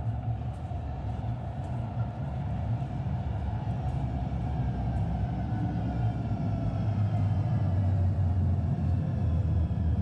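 Calgary CTrain light-rail train rumbling, growing louder, with high whines slowly falling in pitch.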